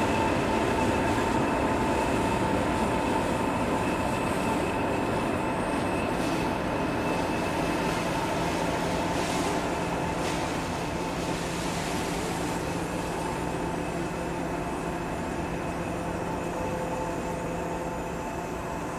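Heritage diesel locomotive running, a steady humming engine note with a higher whine above it, slowly fading.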